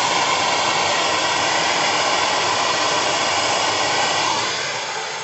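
Bernzomatic TS8000 hand torch burning with a steady, even hiss that eases slightly about four seconds in.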